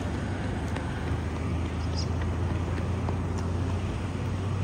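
Steady low vehicle rumble with road noise: a constant low hum, no single event standing out.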